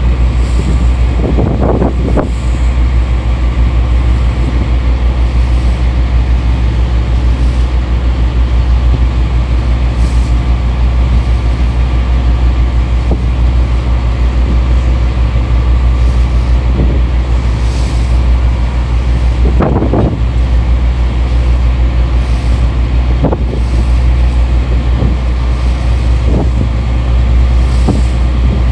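Strong wind buffeting the phone's microphone over the steady low drone of the YF2125 support boat's engine, with a few harder gusts, the strongest about two-thirds of the way through.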